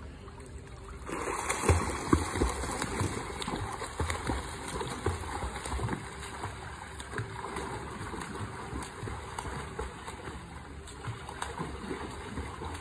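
A child splashing through pool water while swimming, the splashing starting about a second in and loudest just after, then running on as many small splashes.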